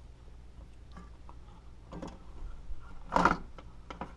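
Quiet bench handling of a metal amplifier chassis and circuit board: a few faint clicks and a short rustling bump about three seconds in, over a steady low hum.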